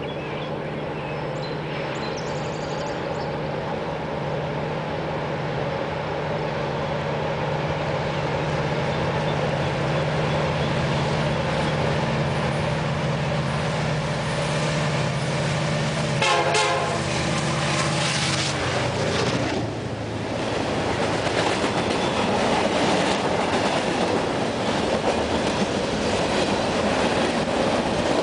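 A CN freight train led by diesel locomotive 5690 approaching, its engine running with a steady drone that grows louder. There is a brief horn sound about sixteen seconds in. After a short dip near twenty seconds the locomotive has passed and the freight cars roll by, with steady wheel and rail clatter.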